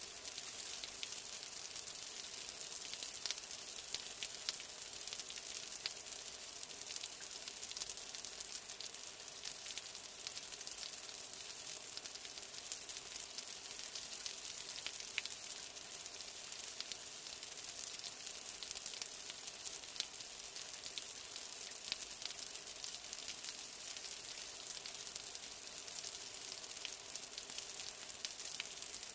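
Steady rain falling: a constant hiss dotted with many small, irregular ticks of individual drops.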